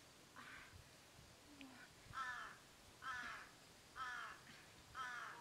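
A crow cawing, four calls about a second apart, each dropping in pitch, after a fainter call near the start.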